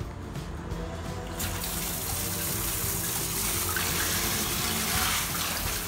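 Water starts spraying from a handheld shower head about a second and a half in, then runs on in a steady, strong hiss. Background music plays underneath.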